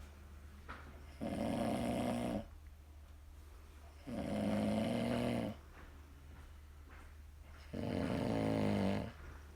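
A man snoring heavily in his sleep: three long, rough snores, each lasting over a second, coming about every three seconds with quiet breathing between them.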